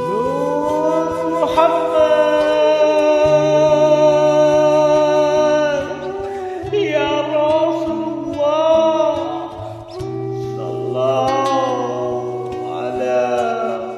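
Islamic devotional song (sholawat): long held, ornamented sung notes over sustained backing notes that change every few seconds, with no clear words.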